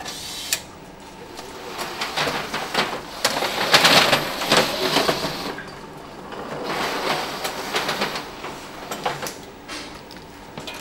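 Metal PC chassis rattling and clicking as it rolls along an assembly-line roller conveyor, in two spells of clatter, the louder one about two to five seconds in.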